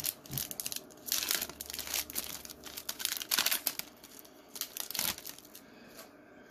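Foil trading-card booster pack wrapper crinkling as it is handled and torn open, in repeated crackly rustles that die down about five seconds in.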